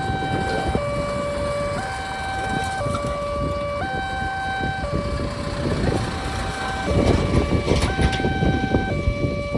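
Railway level-crossing barrier alarm sounding a two-tone hi-lo siren, switching between a higher and a lower tone about once a second over a steady higher tone. A rough, noisy rumble underneath grows louder about seven seconds in.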